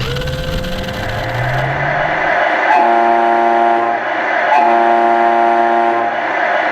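An RC toy car's electric motor whines up in pitch, then its electronic horn sounds twice, each blast a little over a second long, over a steady hiss.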